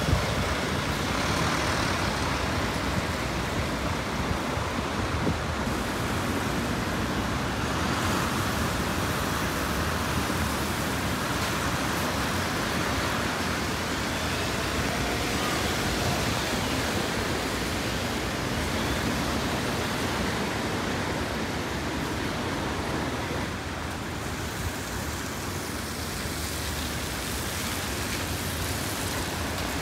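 Steady street traffic noise with tyres hissing on a rain-wet road, and a faint whine rising about halfway through.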